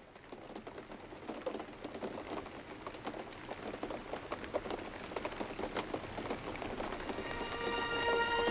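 Rain falling, fading in and growing louder, with many separate drops pattering on a hard surface. Near the end, music comes in with sustained notes.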